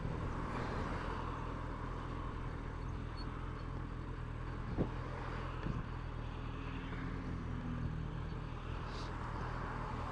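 Suzuki Bandit motorcycle's inline-four engine running steadily under way, with wind and road noise and two brief knocks near the middle.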